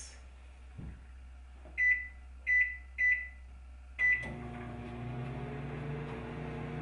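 Microwave oven keypad beeping four times as the cook time is keyed in and started, then the oven starts running with a steady hum.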